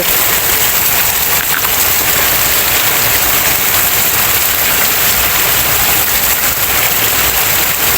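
Water running out in a steady, close rush of splashing.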